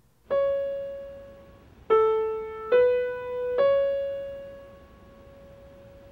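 Four single piano notes struck one at a time: C sharp, then A, B and C sharp again. This climbs the first three steps of the A major scale up to its third. Each note starts sharply and dies away, and the last C sharp rings on, slowly fading.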